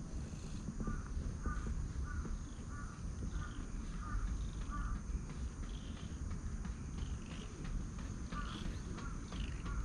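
A crow cawing in a run of short, evenly spaced calls, about two a second, from about a second in until about five seconds in, then three more caws near the end, over a steady low rumble.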